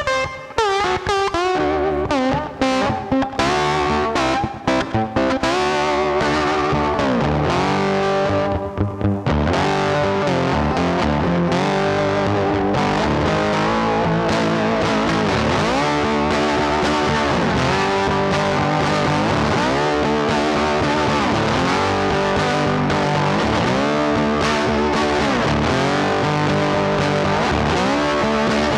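Background music led by a distorted electric guitar with bending notes over a steady repeating rhythm.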